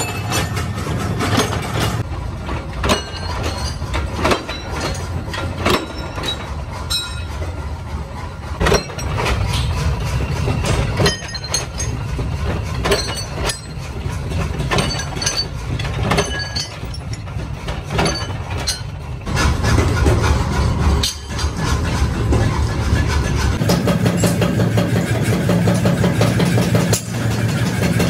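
Flywheel-driven mechanical power press running with a steady motor hum, with repeated sharp metal clanks a second or two apart as steel bar stock is punched and sheared in its die.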